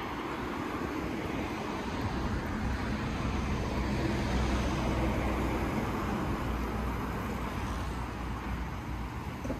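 Road traffic: a car passing along the street, a low rumble of tyres and engine that swells toward the middle and then fades away.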